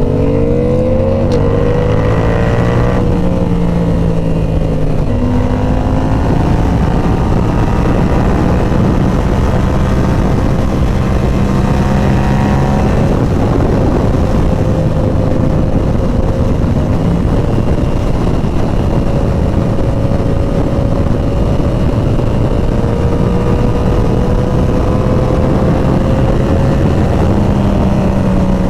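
Inline-four sportbike engine accelerating through several quick upshifts in the first five seconds, then holding a high-speed cruise with revs creeping slowly up, over a steady rushing noise.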